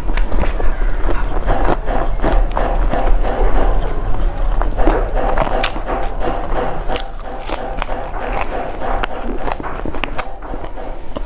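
Loud, close-up chewing of a mouthful of rice and fried food eaten by hand: many wet mouth clicks and small crunches, over a steady low hum.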